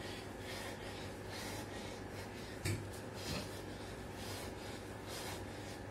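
A man breathing hard and fast through the nose and mouth, about two puffs a second, while doing burpee push-ups. There is a single thud about two and a half seconds in, from his body or feet hitting the tiled floor.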